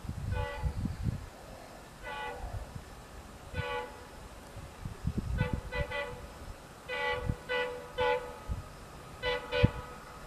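Diesel locomotive's air horn giving a long series of short toots, singly and in quick runs of two or three, as the train approaches at speed. An uneven low rumble runs underneath.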